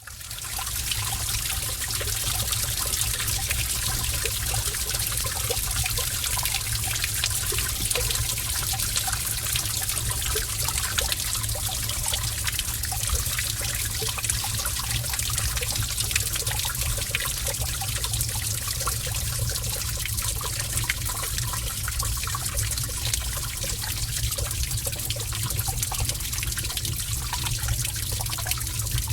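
Cave water ambience: gentle running water trickling steadily, with small drips and splashes throughout and a low rumble underneath. It fades in over the first second.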